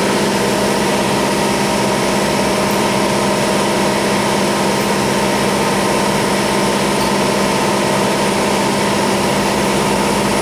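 CNC machine running with a constant, even machine hum and steady tones.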